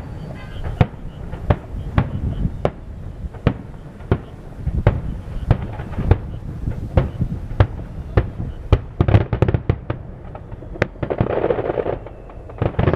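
Aerial fireworks shells bursting in quick succession: sharp bangs every second or so over a low rumble, with a brief denser rush of noise near the end.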